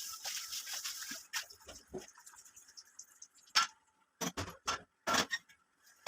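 A hissing rush, like running tap water, that stops about a second in, followed by a string of separate knocks and clatters of kitchen utensils being handled.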